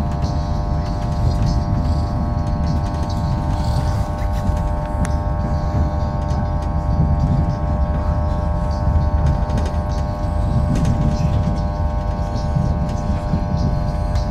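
Running noise inside a moving passenger train: a steady low rumble with a constant multi-tone hum over it and occasional faint clicks.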